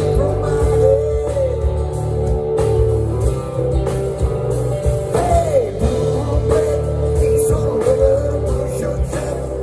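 Live rock band playing through a stage PA: electric guitar, bass and drums, with a few guitar notes gliding up and down in pitch over a steady beat.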